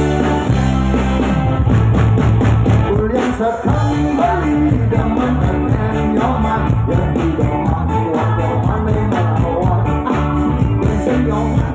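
Live band playing a song with a steady beat: electric guitar, saxophone, keyboard and drums.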